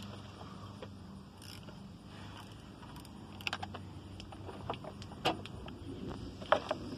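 Scattered light metallic clicks and clinks of hand tools being worked on a car, busier in the second half, over a steady low hum.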